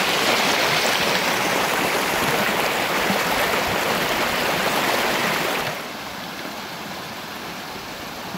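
Water rushing and splashing out of a hydraulic ram pump's impulse valve as the pump runs, a steady spraying sound with no clear beat. About two-thirds of the way through it turns quieter, leaving softer running water.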